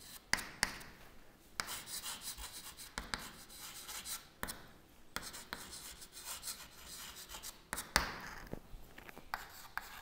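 Chalk writing on a chalkboard: short scratchy strokes with occasional sharp taps as the chalk meets the board.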